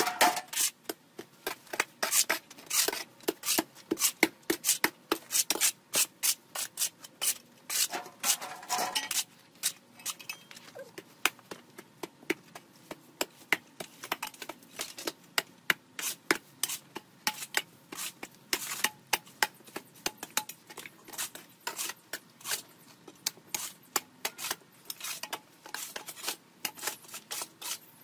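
Shovel and hoe blades scraping wet mud and soil across a concrete path: a quick, irregular run of short scrapes.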